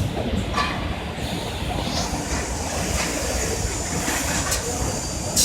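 Machinery of a UPVC window welding and corner-cleaning production line running: a steady mechanical rumble with a few short, sharp hisses and clacks.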